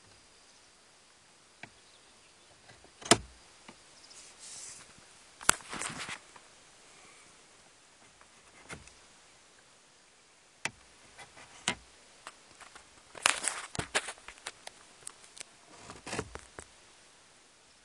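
Hard plastic parts being handled and fitted against a car dashboard: irregular clicks and knocks with short bursts of rustling, loudest near the start and in a quick cluster later on.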